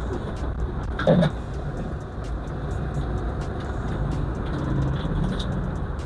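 Steady engine and road noise of a 1996 Toyota Hilux Surf turbo-diesel running, with one brief louder sound about a second in.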